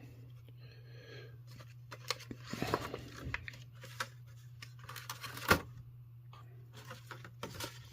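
Toy packaging of cardboard and plastic being handled and torn open to get an action figure out: scattered rustles and clicks, with a sharp snap about five and a half seconds in.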